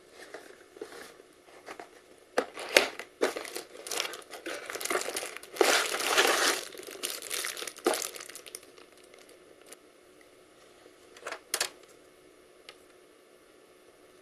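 Plastic wrapping around a new dot-matrix printer ribbon cartridge crinkling as the cartridge is pulled out of its cardboard box and unwrapped. The crinkling comes in quick bursts, loudest about six seconds in, and stops with two short crinkles a few seconds later.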